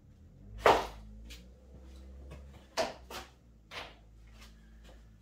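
Knocks and clunks from handling the wooden frame and gantry of a DIY CNC machine: one sharp knock about half a second in, then a few lighter knocks around the middle. A low steady hum runs underneath.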